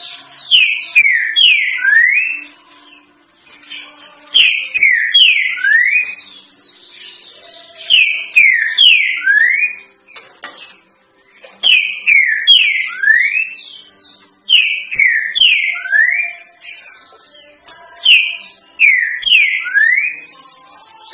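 Green-winged saltator (trinca-ferro) singing its three-note 'boi' song: a loud phrase of three clear whistled notes, the last rising, repeated six times about every three to four seconds, with thin high twitters over each phrase. It is the song used as a tutor for young birds learning to sing.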